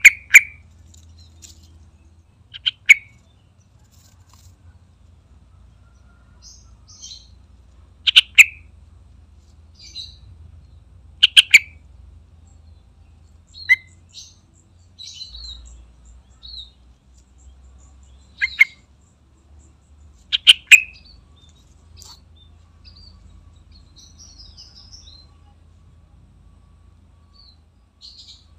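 Yellow-vented bulbul singing: short, loud phrases repeated every few seconds, seven in all, with fainter high chirps in between.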